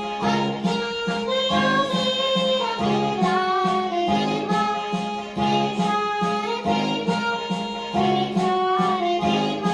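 Music: a held, gliding melody over a low accompaniment that pulses in a steady repeating pattern.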